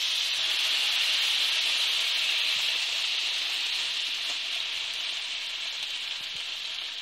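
Thin tomato rava dosa batter sizzling on a well-heated iron dosa griddle (tawa): a steady hiss that fades slowly as the batter sets.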